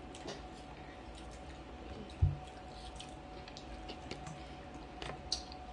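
Quiet eating at a table: soft chewing and light clicks of forks on plates, with one dull thump about two seconds in.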